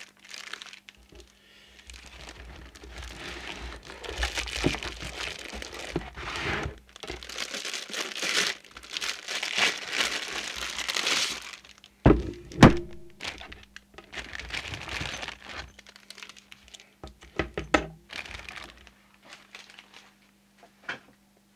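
Plastic bag crinkling as a new CB radio is unwrapped from its box packaging, then two sharp knocks about halfway through, followed by a few lighter clicks and rustles.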